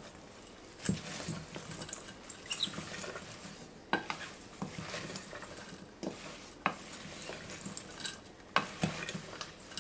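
Wooden spoon stirring a wet chopped salad of tomatoes, mango, onion and herbs in a stainless steel bowl. It makes a soft, moist rustling, with several sharp knocks of the spoon against the side of the bowl.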